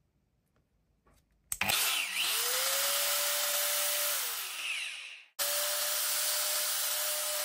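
Makita GA5030R angle grinder switched on: its motor spins up with a rising whine, runs steadily at full speed, then winds down with a falling whine; about five seconds in it is running at full speed again. It is the test run after its burnt-out switch was replaced, and the grinder works.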